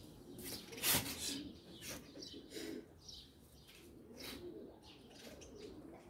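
Pigeons cooing in low, wavering phrases that keep returning, with one sharp click about a second in.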